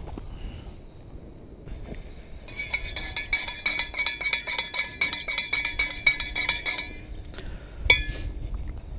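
A spoon stirring milk and sugar into coffee in a titanium double-wall mug: quick ringing metal clinks, about five a second, for some four seconds, then one single louder clink near the end.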